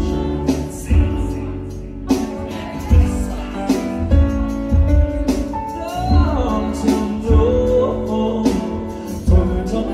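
A live band performing: a male singer over electric guitars, keyboard and drums, with a steady beat of drum hits throughout and the sung melody clearest in the second half.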